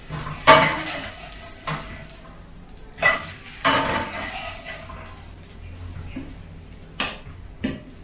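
Wooden spatula knocking against a nonstick frying pan as an egg-and-vegetable omelette is pushed and shaped: about half a dozen sharp knocks with a brief ring, the loudest about half a second in and two more near the end.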